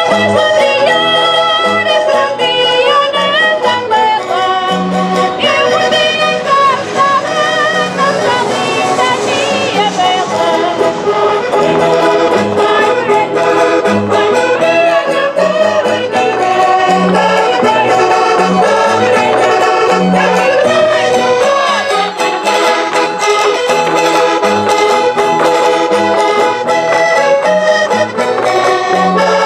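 Traditional Minho folk music from a Portuguese folk group: an accordion-led melody over a regular low beat, with voices singing along.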